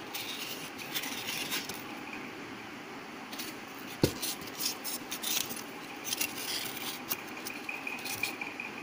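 Scratchy rustling and crackling of a polystyrene foam strip being pressed and rubbed along the inside of a cardboard box, with one sharp knock about four seconds in.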